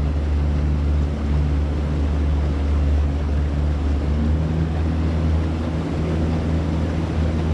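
A boat's outboard engine running steadily as the boat cruises, a constant low drone with a light wash of water and air noise over it.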